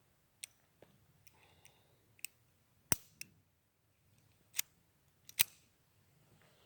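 Taurus PT-22 .22 LR pocket pistol being racked by hand to chamber a round, a string of short, sharp metallic clicks. The loudest comes about three seconds in, and two more come near the end.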